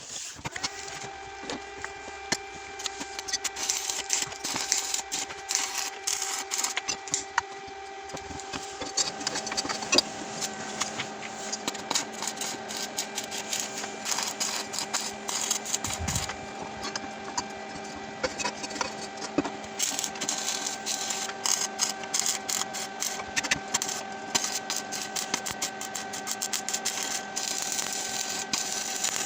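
A power tool working on the steel tube frame: a steady machine whine with dense, irregular crackling throughout.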